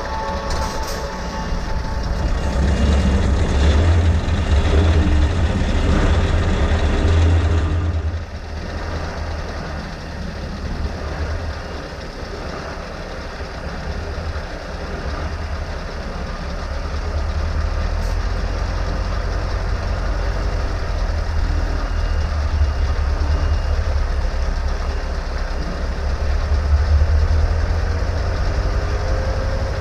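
Scania R520's V8 diesel engine running as the truck drives slowly, with a deep low rumble and road noise, heard from a camera mounted on the outside of the truck. The sound drops about eight seconds in, then builds again.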